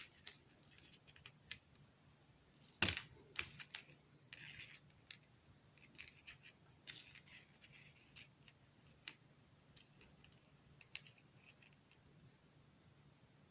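Small plastic toy figures being handled, with scattered clicks, scrapes and short rustles and one sharp knock about three seconds in as one is set down on a hard surface.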